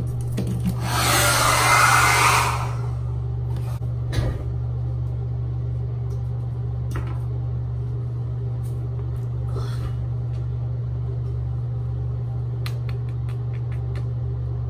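A steady low hum throughout, with a loud burst of hissing about a second in that lasts about two seconds, then a single thump and a few light clicks.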